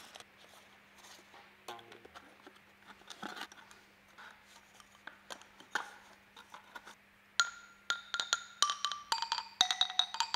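Small wooden toy xylophone struck with two mallets: a quick run of ringing notes at different pitches starting about seven seconds in. Before that, faint clicks and taps of small parts being handled.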